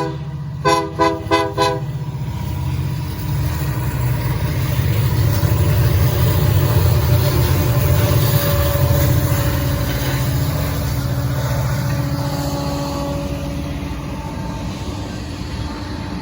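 Locomotive air horn giving four quick toots, followed by the low, steady rumble of the train passing, which swells and then eases off.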